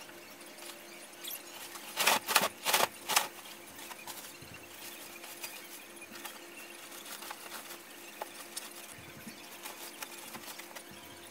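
Bedding rustling as a bed is made: four loud swishes of the duvet being shaken out about two seconds in, then lighter rustles and small knocks, over a faint steady hum.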